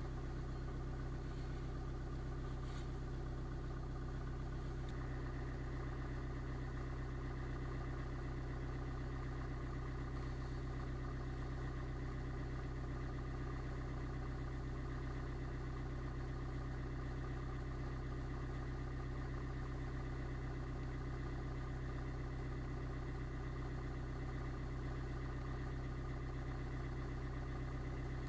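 Car engine idling steadily, heard from inside the stationary car's cabin.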